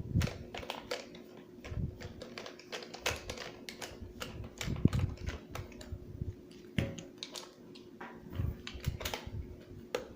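Phillips screwdriver turning screws out of a hard plastic base cover by hand: irregular clicks, taps and scrapes of plastic and metal.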